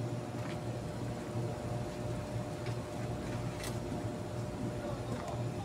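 A steady low mechanical hum with a faint steady tone above it, and a few light clicks.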